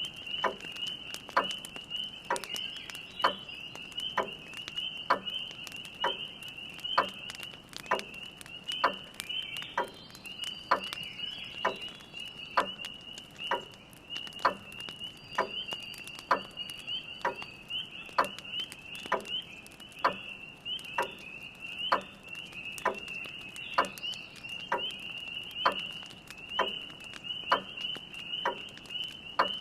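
A grandfather clock with a steady tick-tock over a constant high-pitched chorus of spring peepers, with the light crackle of a wood fire.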